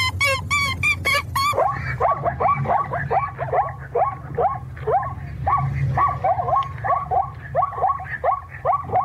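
Recorded animal calls on a dance soundtrack. A quick run of high chirps lasts about a second and a half, then gives way to a string of short, dog-like yelping calls, two or three a second, each dropping in pitch, over a steady low music bed.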